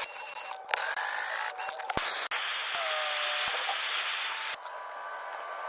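Gas soldering torch hissing, in several short stretches cut together. The loudest stretch runs about two seconds in the middle and drops off suddenly.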